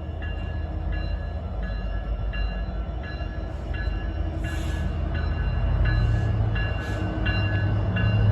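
A pair of EMD SD70ACU diesel helper locomotives passing with a low engine and wheel rumble that grows louder from about halfway. A bell rings steadily, about one strike every 0.7 s, and there are a few short hissing bursts.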